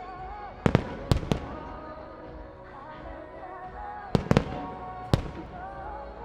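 Aerial firework shells bursting in sharp bangs, about six of them in small clusters, over a sung pop song playing through the show's loudspeakers.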